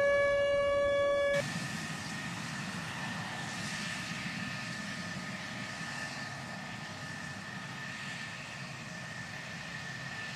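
A steady, horn-like pitched tone cuts off abruptly about a second and a half in, leaving the steady hiss and faint high whine of a jet engine running.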